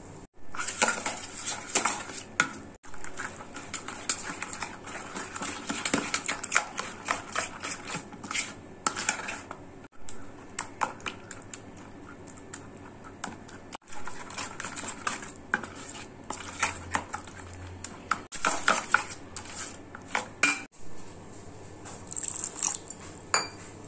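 Metal spoon scraping and clinking against a metal bowl while stirring semolina and curd into a thick batter, in irregular strokes broken by a few sudden cuts.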